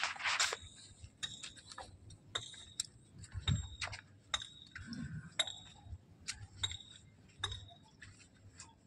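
Light metallic clinks and ticks at irregular intervals, about two a second, each with a short high ring, over a faint low rumble.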